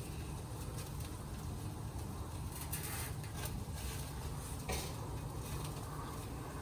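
Gas grill running with steaks on it: a steady low rumble, with a couple of short clatters about three and five seconds in.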